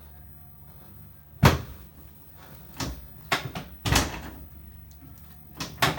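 Chiropractic treatment table clunking and knocking: one loud clunk about a second and a half in, then several smaller knocks.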